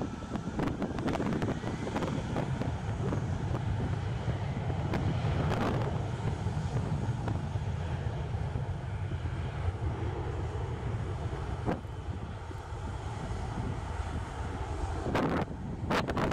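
Embraer regional jet's turbofan engines running steadily at low power as it taxis. Wind buffets the microphone in short gusts, about five seconds in and again near the end.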